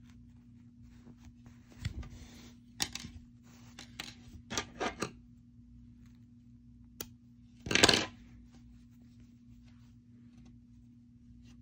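Hands handling craft materials on a table: soft rustling with a few scattered clicks and knocks, and the loudest, a short clatter, about eight seconds in.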